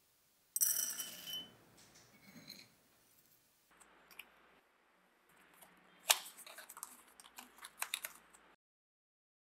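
Rolled oats poured from a steel measuring cup into an empty glass mug, the first rush making the glass ring, then trickling off. Later a cardboard box flap is pulled open: one sharp snap followed by a run of small clicks and rustles.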